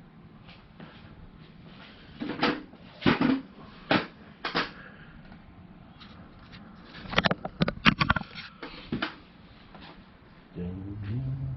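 Two clusters of sharp knocks and rattles from sheet-metal tool chest parts being handled, a few seconds apart.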